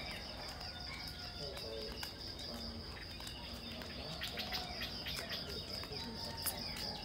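Steady high-pitched insect trill, with short bird chirps over it, most of them about halfway through.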